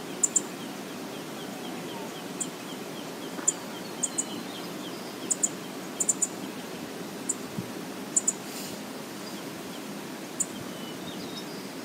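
Outdoor wildlife-cam ambience: birds calling over a steady low rushing background noise. There is a quick run of short chirps over the first few seconds, a few more near the end, and sharp high ticks scattered throughout.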